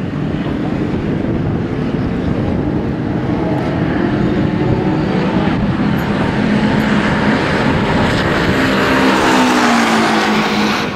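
Westfield racing car engines running on the grid, their pitch wavering; one engine note falls in pitch about nine to ten seconds in as the sound grows louder.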